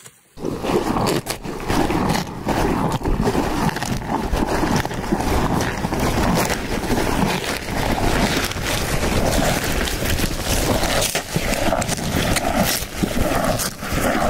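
A cow munching leafy greens and grass at close range: dense, continuous crunching and rustling as it chews.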